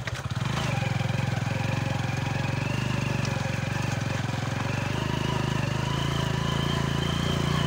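Hero Honda 100cc single-cylinder four-stroke motorcycle engine running while riding over a rough quarry dirt track. The engine sound dips briefly right at the start, then holds steady.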